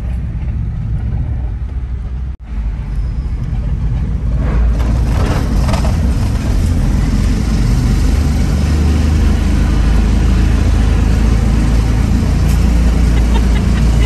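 Fiat 500 towing a motorcycle trailer, driving up the steel ramp of a ferry's vehicle deck, heard from inside the cabin as a loud, low rumble that grows louder about four seconds in. The owners call it a really bad, very loud grinding sound and think it may come from the trailer.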